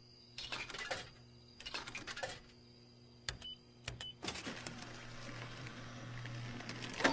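Snack vending machine: a few clicks and rattles and two short high beeps, then the machine's spiral motor running steadily for about three seconds as it turns the coil and pushes a chip bag forward, ending in a knock.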